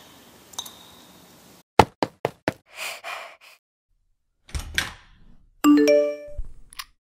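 A water drip in a sink, then four quick sharp knocks on a door about two seconds in, and a phone's notification chime near the end: a few clear tones that ring briefly and fade.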